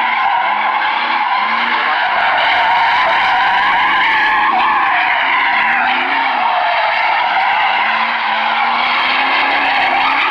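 Tyres squealing continuously as a vehicle spins donuts on asphalt, under a high-revving engine whose pitch wavers slightly up and down.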